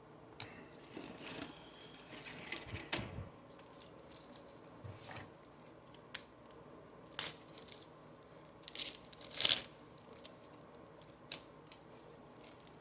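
A trading card pack's wrapper being torn open by hand and crinkled, in scattered short bursts, the loudest about seven seconds in and again around nine seconds in.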